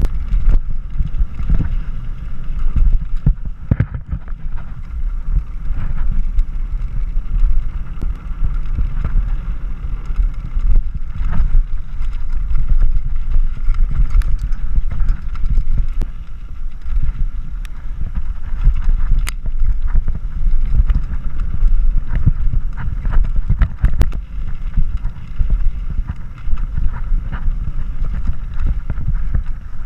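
Mountain bike descending a dirt and gravel trail at speed: heavy wind rumble on the microphone, tyres rolling over loose rock, and frequent clicks and knocks from the bike rattling over the rough ground.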